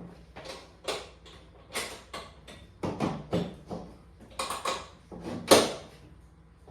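Clicks, knocks and rattles of an aluminium motorcycle top case being handled and fitted onto its rear rack, with about a dozen separate strikes and one sharp knock, the loudest, about five and a half seconds in.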